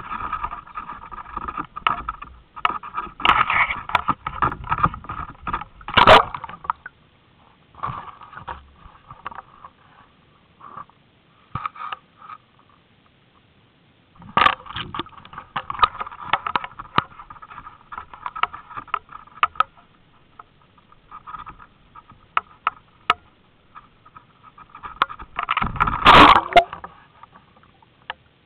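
Handling noise from an underwater camera being moved through a shallow pond among reed stems: irregular scraping, rubbing and knocking in bursts, with sharp ticks between them. The loudest knocks come about six seconds in and again near the end.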